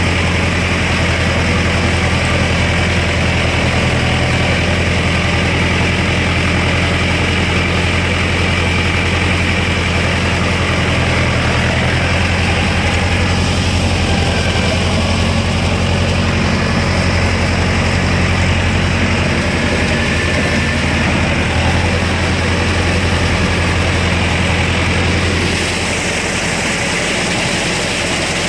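Mahindra Arjun Novo 605 DI-i 4WD tractor's diesel engine running steadily under load, driving a rotavator through wet paddy mud. The steady low drone eases slightly a few seconds before the end.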